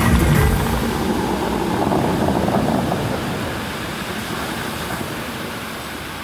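Fountain music stops just after the start. Then the rush and splash of the Dubai Fountain's tall water jets falling back into the lake as spray, slowly fading.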